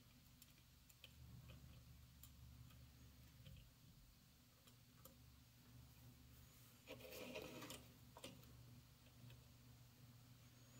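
Near silence, with faint scattered ticks of steel tweezers on a circuit board's component lead and a brief soft noise about seven seconds in.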